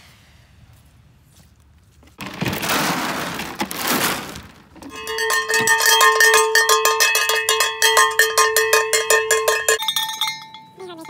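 A rattling rush like feed being tipped into a metal trough. Then, about five seconds in, a metal object is struck rapidly over and over, ringing like a cowbell for about five seconds before stopping: a feed-time signal calling the horses.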